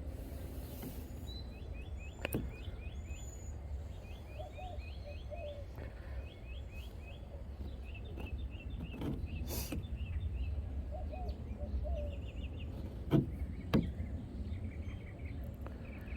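Songbirds singing short, repeated chirping phrases over a steady low rumble. A few sharp clicks or taps break in, the loudest two close together about three-quarters of the way through.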